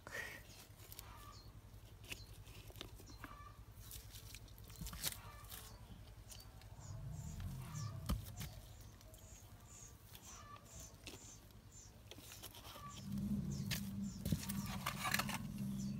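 Hands handling a potted strawberry plant and its soil: scattered small rustles, crackles and scrapes. Faint short chirps sound in the middle, and a low hum comes in near the end.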